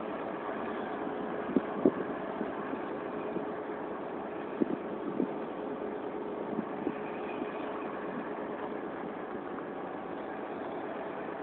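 A steady mechanical drone with a faint constant tone, broken by a few short knocks.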